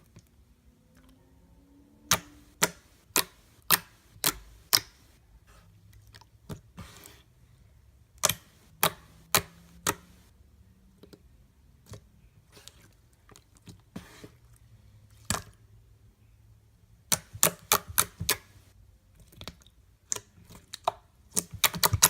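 Watery, jiggly homemade slime being squeezed and stretched by hand, making irregular sharp clicks and pops as air pockets burst, several in quick runs.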